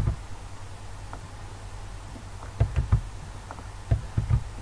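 Computer mouse and keyboard clicks from copying and pasting text, a single one at the start and small clusters of two or three later, over a steady low hum.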